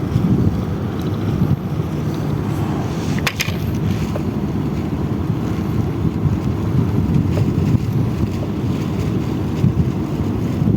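Wind buffeting the microphone in a steady low rumble out on open water, with a sharp click about three seconds in.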